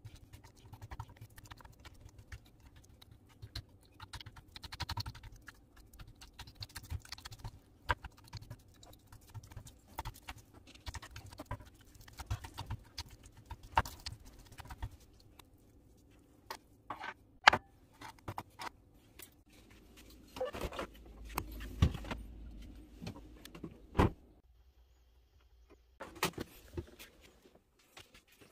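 Hands handling and rubbing a salted slab of pork belly on a wooden cutting board: irregular soft taps, rubs and clicks, with a short quiet break near the end.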